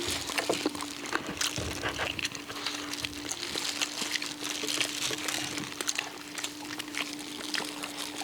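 Cola poured into a bowl and fizzing: a steady hiss thick with quick crackles of bursting bubbles.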